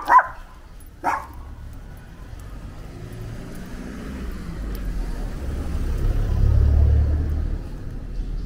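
A car drives past on a narrow street: a low engine and tyre rumble swells, is loudest about two-thirds of the way through, then eases off. Near the start, a dog gives a couple of short yaps.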